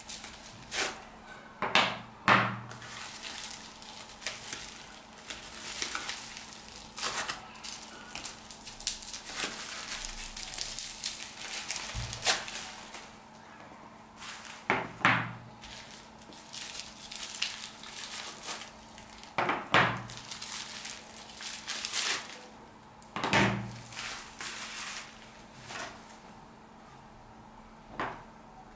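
Plastic bubble wrap crackling and rustling as it is pulled off small product boxes, with several hard knocks as boxes are set down on a table.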